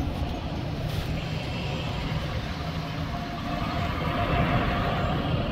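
A bus engine running with a steady low rumble; a whine comes in about three seconds in.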